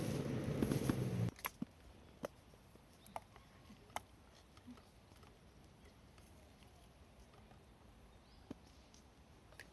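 A steady low rumble with a hum stops abruptly about a second in. After that there are only faint, scattered clicks and taps.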